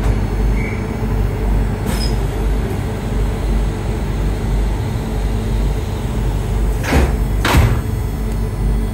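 Endeavour diesel railcar's sliding passenger door closing, shutting with two sharp knocks about half a second apart near the end, over the railcar's steady low hum.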